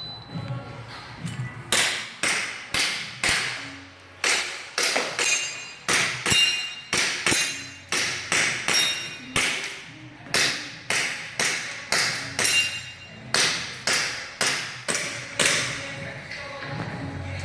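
Rapid airsoft pistol shots, about two a second for some fifteen seconds with a brief pause near the start, many of them followed by a short metallic ping of pellets striking steel targets.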